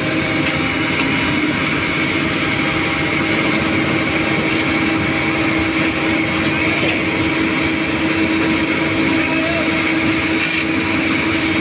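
Doosan 225 excavator's diesel engine running steadily, with a constant whine over the engine noise.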